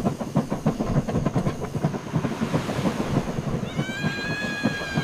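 Train sound: a dense, irregular rumbling clatter, with a steady high horn sounding for about a second and a half near the end.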